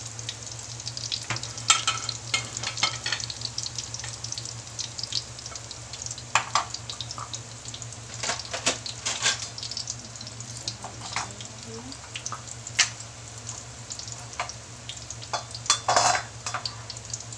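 Shrimp fritter batter (alamang okoy) frying in hot oil in a wok: steady sizzling with constant small crackles and a few louder pops scattered through, over a steady low hum.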